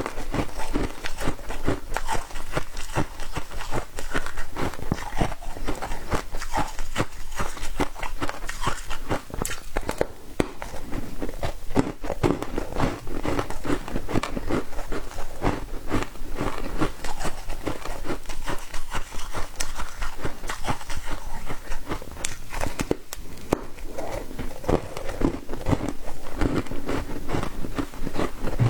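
A person biting and chewing foam ice, a dense, continuous run of crisp crunches and crackles.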